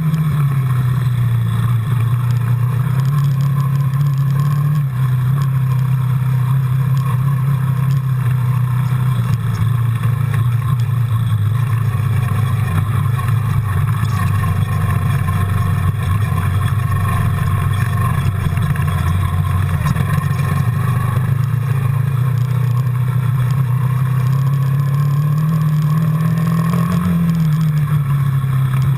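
Quad bike engine running steadily as it is ridden along an off-road track, its note shifting gently with the throttle and rising briefly near the end.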